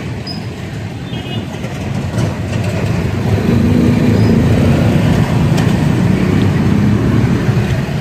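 Road traffic close by, with a vehicle engine growing louder about three seconds in and running close for several seconds.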